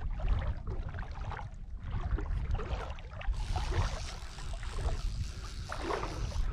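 Wind buffeting the microphone as a steady low rumble, over water sloshing and trickling in shallow surf.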